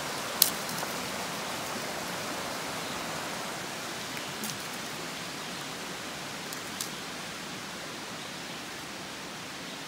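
Steady rushing of a small creek running over rocks, growing slightly fainter, with a sharp click about half a second in and a few fainter clicks later.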